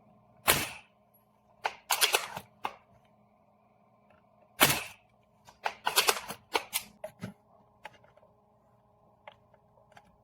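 A series of sharp mechanical clicks and clacks, some single and some in quick clusters of several, the loudest about half a second in and again near the middle.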